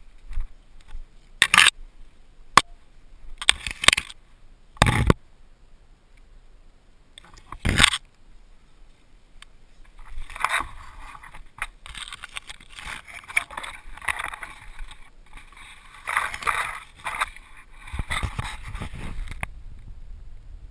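Leaves and branches rustling and scraping against the rider and the camera as a mountain bike is pushed through thick brush. There are several sharp knocks in the first half, then a continuous, uneven brushing noise that stops shortly before the end.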